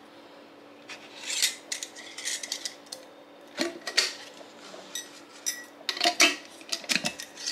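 Metal screw lid of a glass jar being turned on its threads and handled, giving a run of short metallic scrapes and clinks that starts about a second in.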